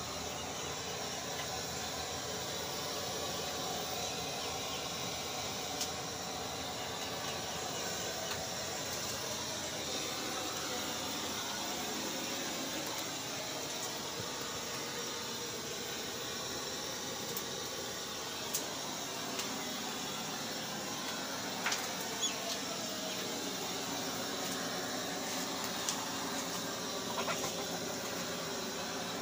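Steady hissing background noise, with a few faint clicks and taps.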